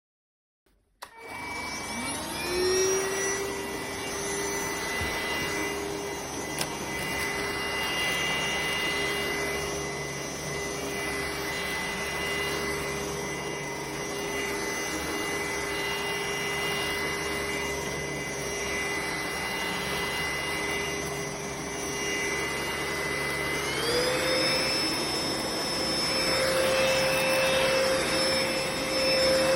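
NADALY cordless stick vacuum starting up: its motor spins up with a rising whine about a second in, then runs steadily with a high suction hiss. About 24 seconds in it speeds up to a higher, louder whine.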